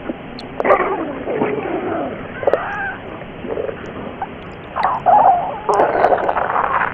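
Stomach gurgling and growling: irregular squeaky, gliding gurgles in several bursts, the loudest near the end, heard through low-quality, muffled audio.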